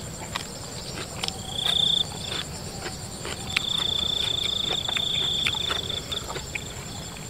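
Crickets trilling at a steady high pitch: a short trill about two seconds in, then a long one from about three and a half to six and a half seconds. Under it are scattered soft clicks of chewing and of raw shrimp being pulled apart by hand.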